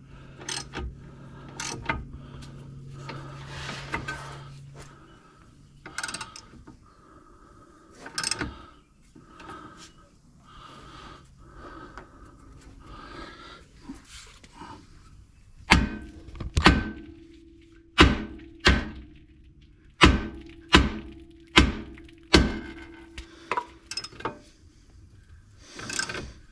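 Light clanks and clicks of tools being set, then from about halfway a run of about ten sharp hammer blows on a steel tie rod end. The blows are knocking the tie rod's tapered stud loose from the steering knuckle while a ball joint separator holds it under pressure.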